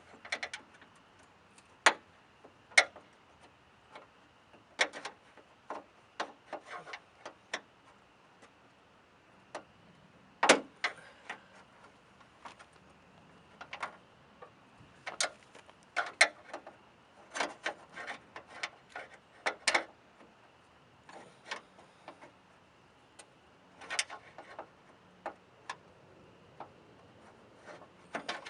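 Flathead screwdriver prying the small plastic clips that hold a trunk's center reflector panel, giving irregular sharp clicks, taps and scrapes.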